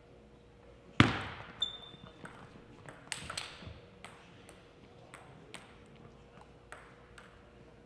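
Table tennis ball and paddles in a short rally, opening with a loud, echoing smack about a second in. A brief shoe squeak and a few more sharp ball strikes follow. After that come scattered light ticks of the ball bouncing.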